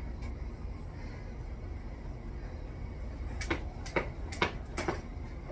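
A jump rope slapping the ground four times, about two slaps a second, starting a little over three seconds in, over a steady low rumble.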